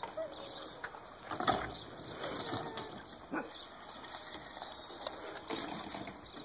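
Faint sounds of dogs moving about a dirt kennel yard, with a few soft knocks and a brief faint whine about two and a half seconds in.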